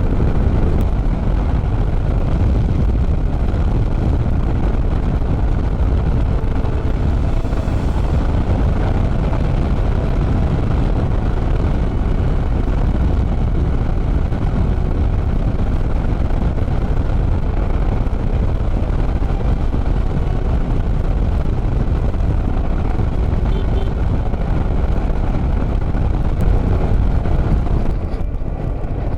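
Motor scooter being ridden at road speed: a steady, loud rush of wind and road noise, with the engine running underneath.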